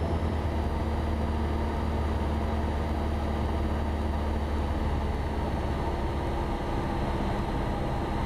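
Cessna 172 engine and propeller droning steadily in cruise, heard from inside the cockpit as a constant low hum.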